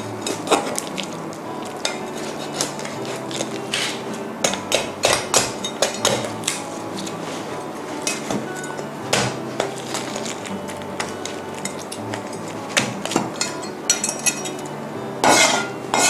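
Meat cleaver chopping through a whole roasted chicken on a wooden cutting board: irregular knocks of the blade through bone into the board, single and in quick runs of several strokes.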